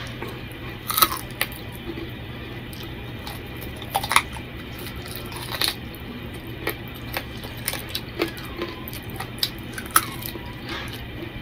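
Close-up eating sounds: sharp wet mouth smacks and clicks every second or so while food is eaten by hand off a plate, the loudest about a second in, four seconds in and near the end, over a steady low hum.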